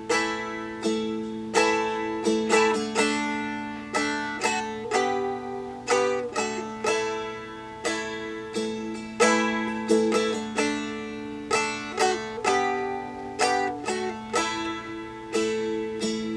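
Seagull Merlin, a four-string dulcimer-style instrument, strummed through a D–G–A chord progression with walk-up and walk-down notes on the second fret, its open strings ringing as a steady drone under each strum.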